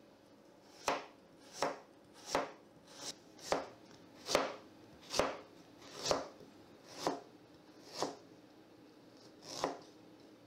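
Masahiro chef's knife slicing raw peeled ginger root on a plastic cutting board: about eleven crisp cuts at a steady pace, a little under one a second, each stroke going through the root and tapping the board, cutting thin slices about 2 mm thick.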